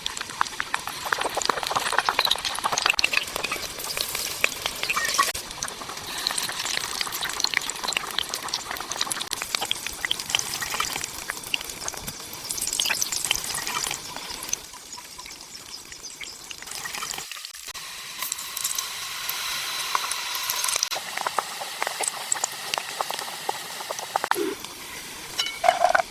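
Hot oil sizzling and crackling in a miniature frying pan as food fries, with many small pops. The sizzle drops quieter for a few seconds past the middle, then picks up again.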